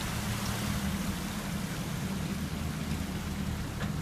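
Land Rover engine running with a steady low hum, over a steady rush and splash of water as the 4x4s wade through the flooded trail.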